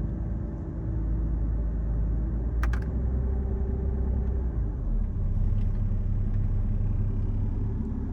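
Mercedes S600's twin-turbo V12 idling with a low growl resonating through the car's body, which the owner puts down to worn motor mounts. A short click about 2.7 s in, and the low rumble shifts a little about halfway through.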